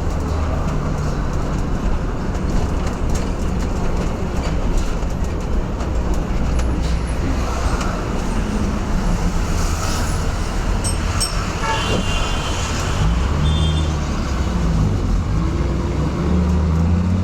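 Mumbai BEST city bus heard from inside the passenger cabin while moving: a steady low engine drone with road noise and rattling. The engine note changes pitch in the last few seconds, and a few brief high tones come through about twelve seconds in.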